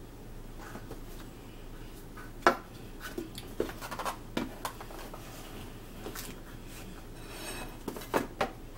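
Dinner plates and cardboard takeout boxes being handled and set down on a table: scattered knocks and clinks, the sharpest about two and a half seconds in and a few more near the end.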